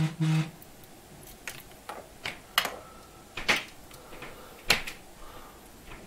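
Plastic SATA data-cable plug clicking and knocking against a hard drive's broken SATA data port as it is pressed on and wiggled. About six sharp, irregular clicks, the loudest a little before the end.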